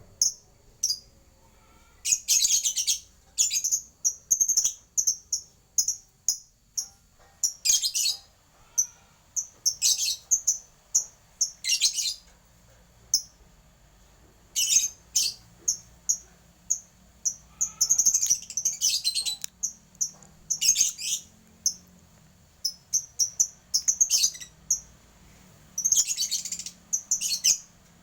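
A lebet bird (Malay local name) calling: short, high-pitched chirps repeated every second or two, some in quick clusters.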